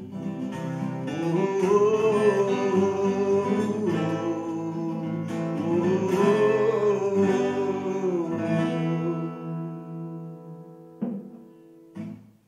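Acoustic guitar strummed, with two long wordless sung notes that swell and bend in pitch. The guitar then fades out, with two last short strums near the end.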